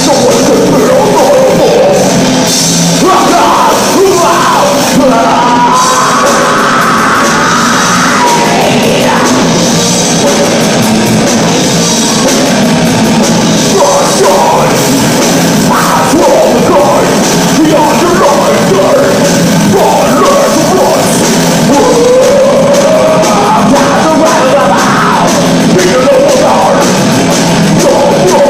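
A heavy metal band playing loudly: distorted electric guitars, bass guitar and drum kit, with a vocalist singing over them.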